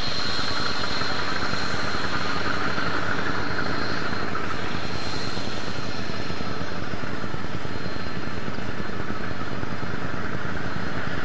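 Southern Pacific 3100, a GE U25B diesel locomotive, running under power as it pulls passenger cars, its engine a steady rapid pulsing drone with a thin high whine over it.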